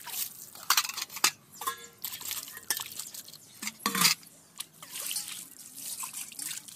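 Water splashing and pouring as steel and brass dishes are rinsed by hand, with scattered clinks and knocks of metal bowls and plates, one of them ringing briefly.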